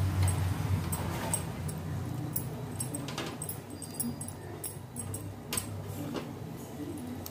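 Thick tamarind fish curry boiling in a clay pot, popping and clicking at irregular moments, while pieces of fish are slipped into the boiling gravy by hand. A low steady hum runs underneath, strongest at the start.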